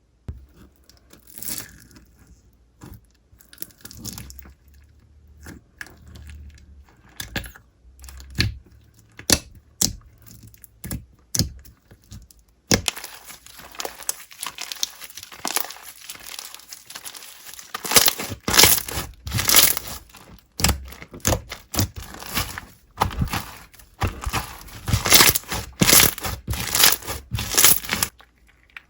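Slime being squeezed, pressed and stretched by hand, giving off crackling, popping clicks. The clicks are sparse at first, then come thicker and louder about halfway through.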